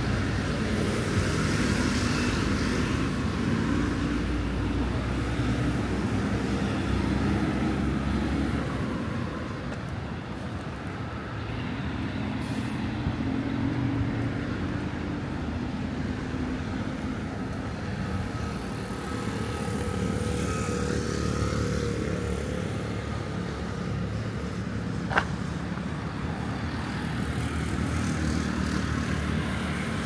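Road traffic going by steadily, engines and tyres swelling and easing, with one sharp click near the end.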